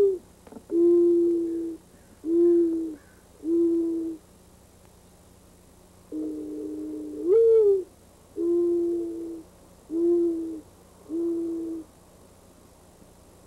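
Dove cooing: a long coo that rises in pitch at its end, followed by three shorter, lower coos. The phrase comes round about every seven and a half seconds.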